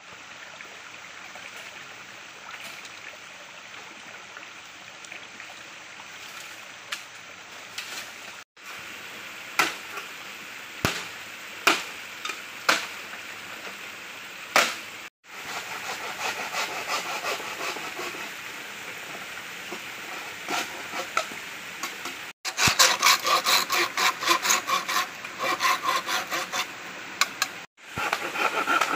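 Machete chopping bamboo: sharp single chops at first, then stretches of scraping and rustling, then a quick run of hacking strokes near the end. A steady hiss of a flowing stream lies underneath.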